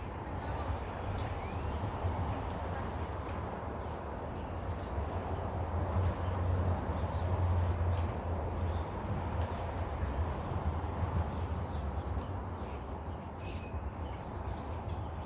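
Small birds chirping again and again in short, high calls that fall in pitch, over a steady low background rumble.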